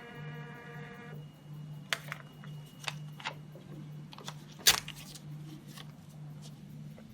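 Hematology analyzer's built-in printer running with a steady multi-tone whine that stops about a second in. Then come a scatter of sharp clicks and taps, one much louder about two thirds of the way through, over a steady low hum.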